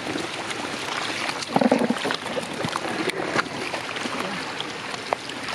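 Water splashing and sloshing with scattered small knocks, one louder burst about a second and a half in.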